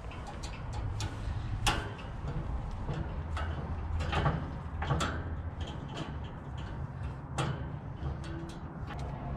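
Irregular clicks and knocks of metal grill parts being handled and worked on, a few of them louder, over a steady low hum.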